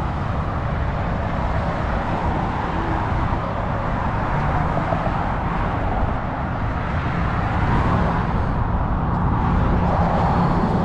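Road traffic on a wide street: a steady rumble of cars driving by, swelling as vehicles pass.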